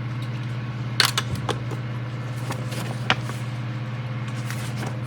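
A few light clicks and rustles of small model parts being handled and set down, over a steady low hum.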